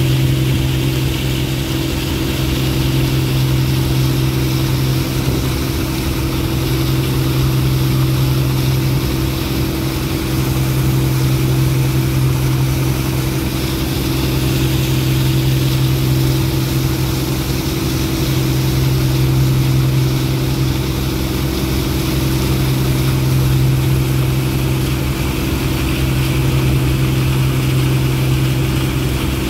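Ferry boat's engine running steadily underway, a constant low drone with a steady hum, over an even hiss.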